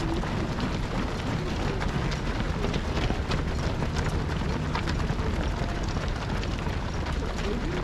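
Footsteps of a large pack of marathon runners on the road: many overlapping shoe strikes making a dense, irregular run of light ticks over a steady low rumble.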